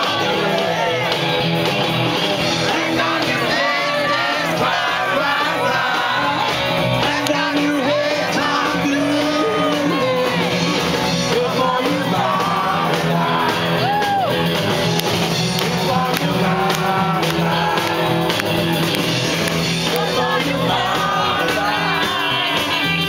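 Live band music played loud, with a crowd close by singing along and shouting.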